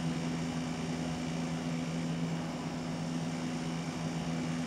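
Steady room hum: two low tones held unchanging over an even hiss, the drone of a fan or ventilation running.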